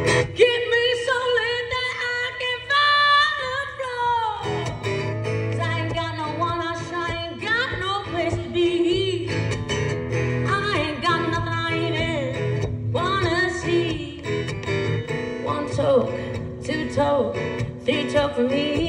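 A woman singing a blues song, accompanying herself on acoustic guitar. A long held sung note slides down in the first few seconds, then the guitar comes in strongly beneath the voice.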